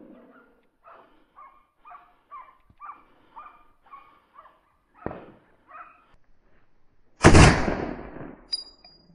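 A rapid string of short yelping calls from hunting dogs, a fainter sharp crack about five seconds in, then a loud close gunshot from a hunting gun about seven seconds in, the loudest sound, with a long tail, followed by a sharp metallic click.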